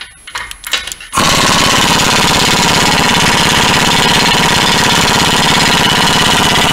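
A few light knocks, then about a second in a pneumatic air hammer (air chisel) starts and hammers without a break in a fast, even rattle, worked against the exhaust under the car to free a stubborn rusted joint.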